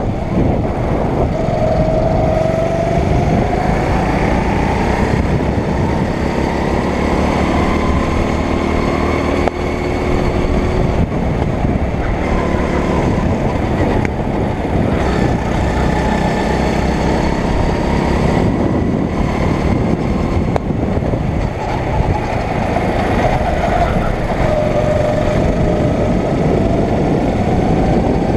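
Rental go-kart's 9 hp four-stroke engine running on board under load, its pitch rising and falling as the throttle is opened and eased through the corners.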